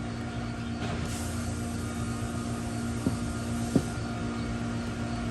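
Steady low mechanical hum with a held tone, and two short clicks a little after three seconds in.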